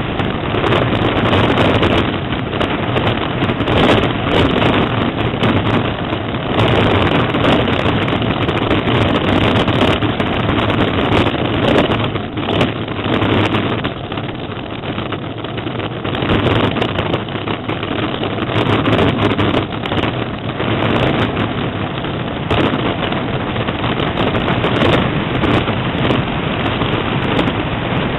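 Engineless gravity racer (carrilana) running fast downhill: a steady loud rush of wind on the on-board microphone mixed with the rumble of its small tyres on asphalt, easing slightly about halfway through.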